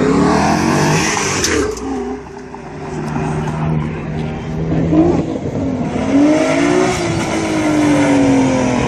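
Car engines accelerating hard, the revs climbing and dropping several times, with another long rise and fall of engine pitch starting about six seconds in.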